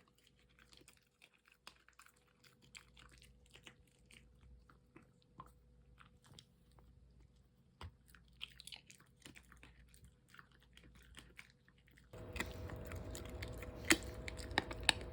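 Jindo-mix dog chewing and crunching food: many short, irregular crunches, a few louder ones near the end.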